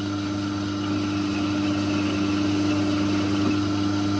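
Myford metal-turning lathe running steadily: the motor and drive hum with a steady whine as the chuck spins, and a faint hiss from the tool taking a light cut on a steel bolt.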